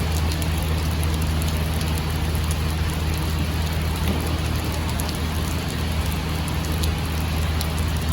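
Engine running steadily, a constant low hum, under an even hiss of rain.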